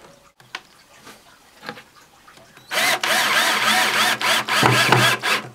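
Power drill driving a wood screw through the back panel into the chipboard side of the cabinet. The motor starts about halfway in and runs for nearly three seconds, with a brief dip near the end.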